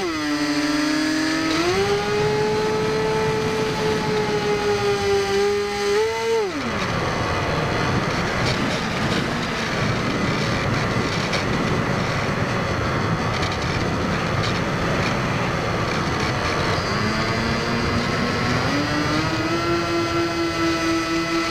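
Electric motor and propeller of a Firebird Stratos RC plane, heard from its onboard camera: a whine whose pitch drops and rises with the throttle. About six seconds in the throttle is cut and a rushing of air takes over while the plane glides, then the whine climbs back to a steady pitch near the end.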